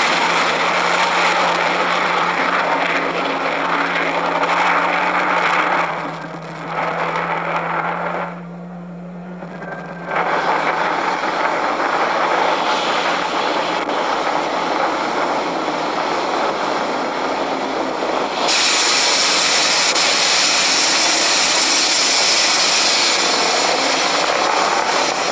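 Falcon 9 rocket's nine Merlin first-stage engines firing during ascent, a steady, loud, noisy roar. The sound drops away briefly about six seconds in and again around nine seconds in, then grows louder and brighter about eighteen seconds in.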